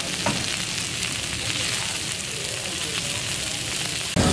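Chicken leg kababs sizzling on a hot flat iron griddle: a steady frying hiss, with faint voices beneath and a short click about a third of a second in. Just before the end, louder street noise and voices cut in.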